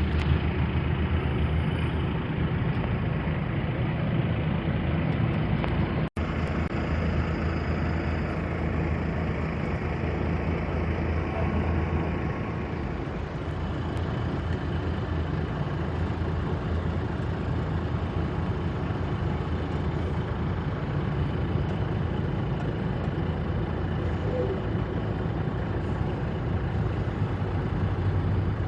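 Container truck's diesel engine running steadily, a low even hum, with a brief drop-out about six seconds in.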